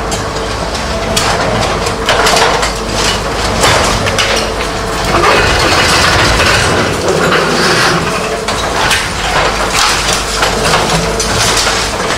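Remote-controlled demolition robot breaking up concrete: irregular cracking and crunching of concrete over the steady hum of the machine's power unit.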